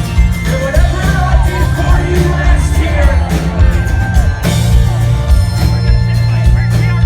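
Rock band playing live through a hall PA: electric guitar, bass and drums, with voices singing over it.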